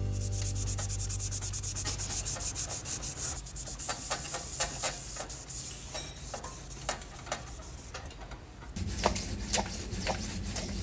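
Rapid rhythmic rubbing or scrubbing strokes, about five a second, for the first three seconds or so, then slower, uneven scrapes and light clicks. A low steady hum comes in near the end.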